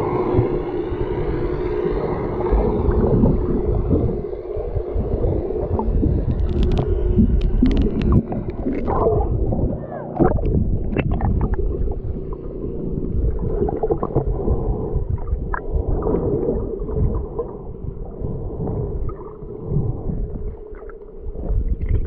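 Muffled underwater sound through a submerged camera's microphone: a steady droning hum with low rumbling water movement, and a scatter of sharp clicks and pops from about six to twelve seconds in.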